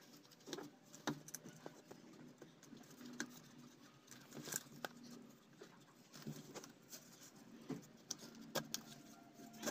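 Faint scattered clicks and taps of hard plastic and copper-wound parts being handled, as a replacement field coil is pressed and worked into an electric wood cutter's plastic motor housing until it seats.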